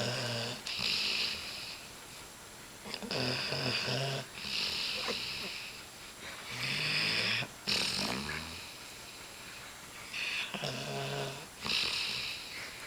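Greater Swiss Mountain Dog snoring in its sleep: a low snore on each breath, followed by a breathy hiss. The cycle repeats about every three to four seconds, four times or so.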